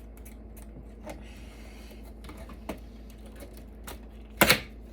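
Scattered light clicks and taps of metal and plastic server parts being handled during disassembly, with a louder double knock near the end.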